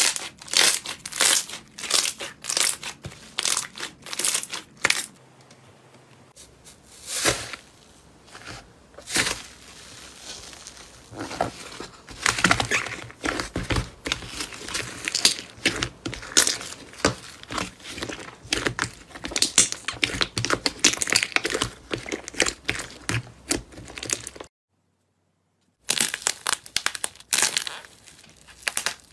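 Hands kneading, folding and stretching slime, with irregular crackling, popping and squishing, and a brief silence about three-quarters of the way through. Near the end, a dry clay crust on the slime cracks and crunches as it is pulled apart.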